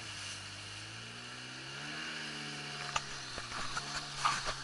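Watercraft engine running steadily, its pitch dipping, then rising again about two seconds in as it speeds up. A few sharp knocks come near the end.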